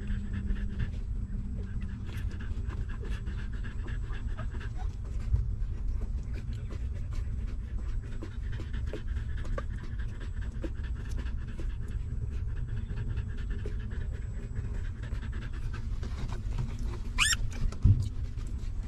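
Nursing mother dog panting rapidly and steadily close to the microphone. A short high squeak comes near the end, along with a few bumps.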